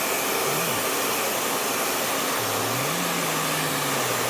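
Hand-held hair dryer blowing steadily on a dog's coat.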